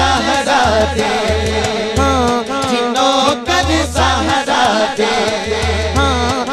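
A man sings a Punjabi naat into a microphone over a PA, drawing out long, wavering melodic lines, with a repeating low beat underneath.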